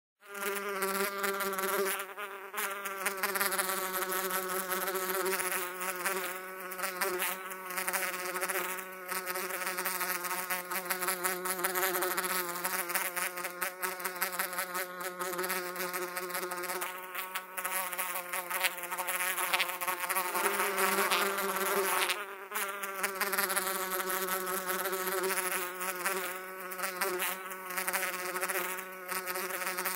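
Continuous bee-like buzzing: one steady low drone with many overtones whose upper tones waver slightly, dipping briefly a few times.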